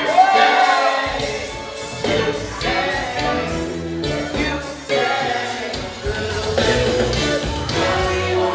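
A song with a singer over a band backing, with a steady beat. The bass and beat come in about a second in.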